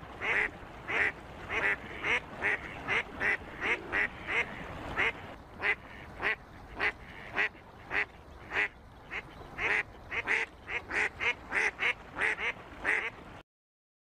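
Ducks calling: a rapid run of short quacking calls, about two or three a second, that cuts off suddenly near the end.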